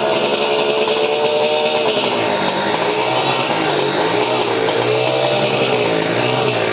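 Motorcycle engine revving hard as the stunt rider circles the vertical wooden wall of a well-of-death pit, its pitch rising and falling repeatedly with the throttle and each lap.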